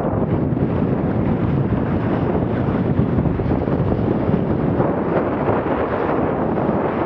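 Steady wind buffeting the camera microphone over the rush of water along a Laser dinghy's hull as it sails at about 7 knots through choppy water.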